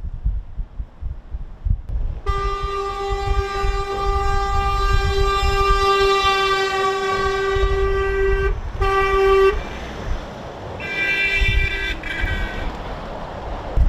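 Lorry horns honking as a convoy of trucks drives past: one long blast of about six seconds, a short blast, then a different-sounding blast near the end, over the low rumble of diesel engines and tyres.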